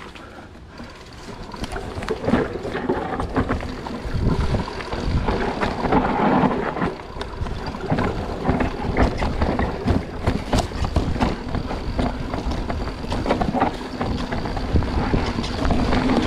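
Mountain bike riding fast down a dirt forest trail: tyres rumbling over dirt and roots and the bike rattling and clattering over bumps, with wind on the microphone. It grows louder over the first couple of seconds as the bike picks up speed.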